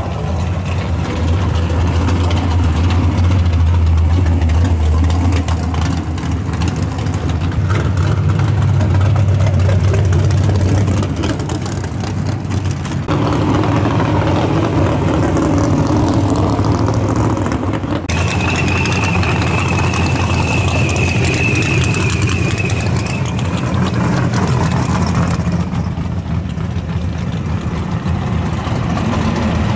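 Drag cars' engines running at low speed as several cars roll slowly past one after another, the loud, steady engine note changing abruptly a few times.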